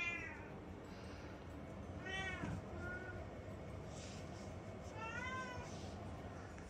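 Domestic cat giving a few quiet meows: one right at the start, one about two seconds in followed by a brief short call, and another about five seconds in.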